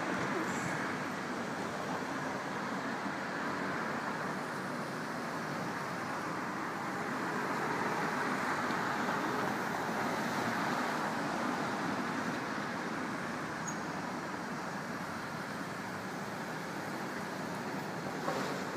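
Steady city street traffic noise, swelling a little in the middle, with a short knock near the end.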